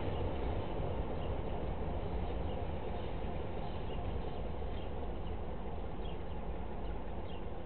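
Steady low rumble of a Romanian class 60 diesel-electric locomotive during shunting, easing off slightly, with a few faint short high chirps over it.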